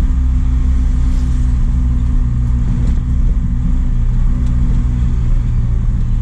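Truck engine running at a steady cruise with road noise, a steady low drone.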